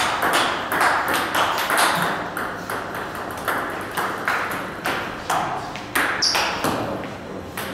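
Table tennis ball clicking sharply off the bats and the table, many irregular ticks with a short echo after each. A brief high squeak about six seconds in.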